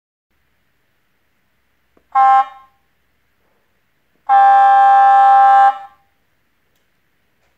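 A horn sounding twice with one steady pitch: a short toot, then a longer blast of about a second and a half.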